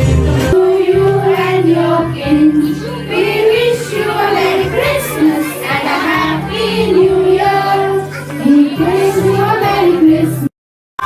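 A song playing for a dance: a high singing voice over a backing track with a steady bass line. It cuts off abruptly about half a second before the end.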